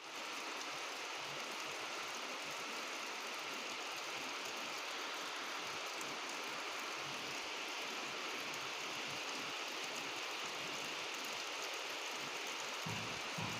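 Steady rain falling, an even hiss with no let-up, with some low rumbling coming in near the end.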